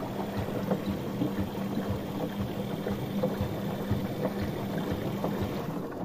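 Far washing machine running a wash cycle: the drum motor hums steadily while water sloshes in the tub, with scattered light knocks.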